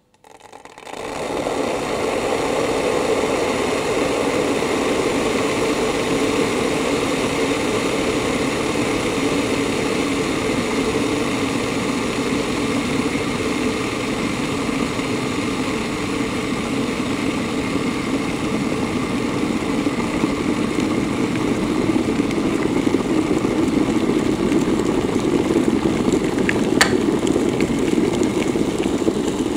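Electric kettle heating water: a steady rushing rumble that swells up about a second in and builds slightly as the water nears the boil, with a brief click near the end.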